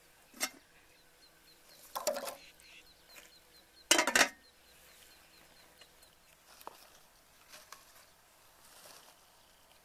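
Aluminium pot lid knocking and clattering against the pot as it is handled and lifted off by its handle, a few short metal knocks with the loudest, ringing one about four seconds in. Faint, evenly repeated high chirps sound in the background.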